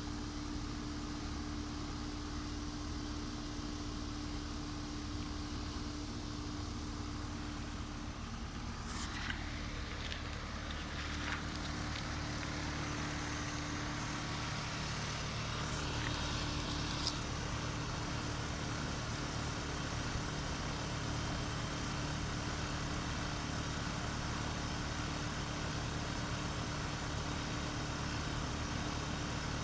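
Outdoor units of Carrier air conditioners running in heating mode: a steady mechanical hum with a low drone, and a few faint clicks and ticks in the middle.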